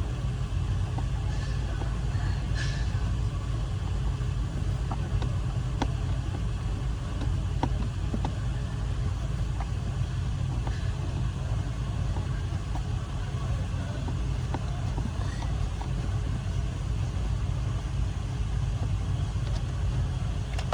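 Steady low mechanical rumble, with scattered faint light clicks and taps over it.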